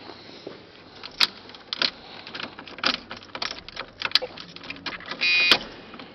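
Scattered sharp clicks, knocks and key rattles from the cockpit of a 1979 Pontiac Trans Am as the car is readied to start, its engine not yet running. About five seconds in comes a short electric buzz, ended by a sharp click.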